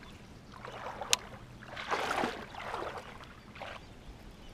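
Baitcasting reel in use during a cast and retrieve: a single sharp click about a second in, with a few short rushing noises around it.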